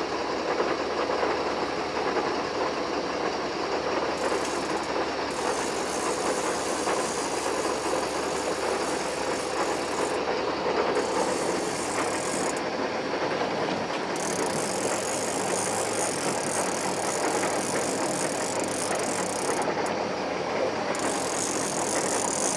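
Steady running noise aboard a sportfishing boat: engine drone mixed with water and wind noise, level and unbroken.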